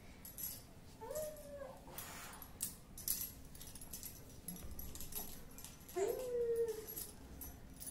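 Baby whimpering in two short rising whines, about a second in and again about six seconds in, fussing at being oiled and massaged. Faint clicks and rubbing from the massage come in between.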